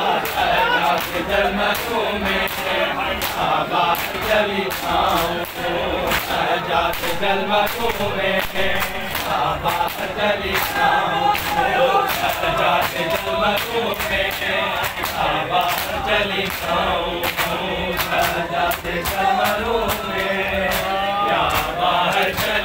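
A crowd of men chanting a noha together in unison, with a steady beat of sharp slaps from hands striking bare chests in matam.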